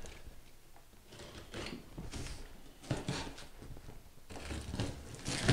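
Box cutter slitting the packing tape along the top seam of a cardboard box, with short scratchy cuts and cardboard scraping, the loudest near the end.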